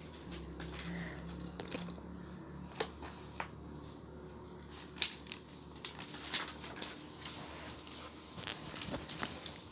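Quiet handling sounds of pen and paper on a worksheet: scattered light clicks and taps, more frequent in the second half, over a low steady hum during the first few seconds.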